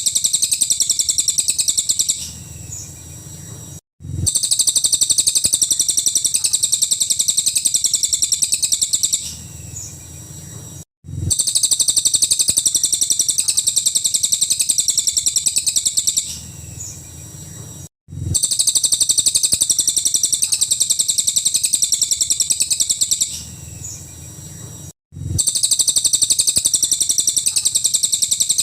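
Cililin bird singing a rapid-fire, shrill, high-pitched chatter in long runs of about five seconds. Each run is followed by a short softer pause, and the pattern repeats about every seven seconds as a looped recording. This is the fast 'nembak' song played as a master recording for training songbirds.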